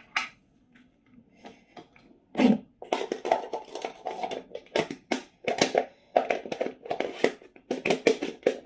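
Plastic lid of a manual hand blender being twisted and pressed onto its bowl, with a fast run of clicks and rattles starting about two and a half seconds in, as the lid is worked to lock in place.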